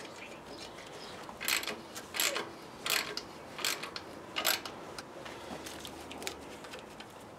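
Ratchet wrench being worked back and forth on a bolt, giving five short runs of clicks about 0.7 seconds apart, with small faint tool noises after them.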